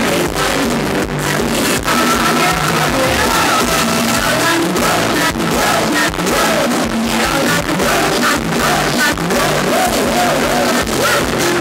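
Live band playing Thai dance-show music at full volume, with a steady drumbeat and a singer's voice over it.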